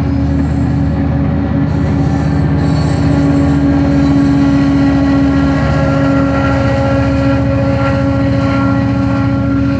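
GO Transit commuter train's diesel locomotive engine running loud, a steady deep drone with a ladder of tones above it that grows a little louder about three seconds in.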